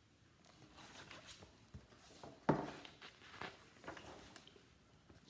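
Faint paper rustling as a picture-book page is handled and turned, with a few soft knocks, the loudest about two and a half seconds in.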